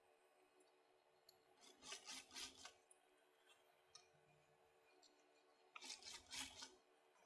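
Sewing at a sewing machine as piping is stitched onto a satin blouse neckline: two faint, short bursts of scratchy rustling, about two seconds in and again about six seconds in, with low room tone between them.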